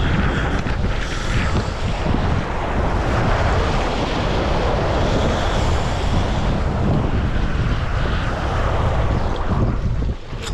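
Wind buffeting the microphone over the steady wash of ocean surf, a dense rumbling rush that briefly drops away just before the end.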